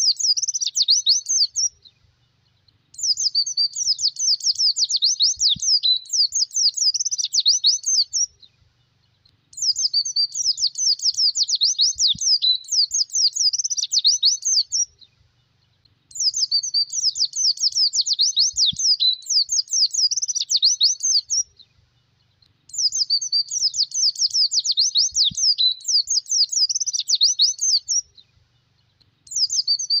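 White-eye (pleci) singing a rapid, high twittering song in bouts of about five seconds separated by short pauses, the same phrase repeating over and over. It is a 'gacor' lure and training recording of the kind played to attract and train caged birds.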